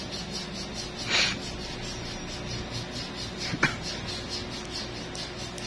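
Steel toenail nippers snipping a toenail: one sharp click about three and a half seconds in. A short hiss comes about a second in, over a steady low background hum.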